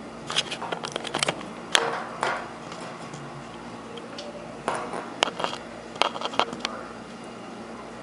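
Two bursts of sharp clicks and clattering knocks, one early and one after a pause, over a steady low hum.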